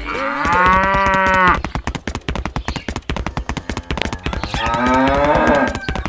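A cow mooing twice: one long call in the first second and a half, and a second long call from about four and a half seconds in. A fast run of clicks sounds between the calls.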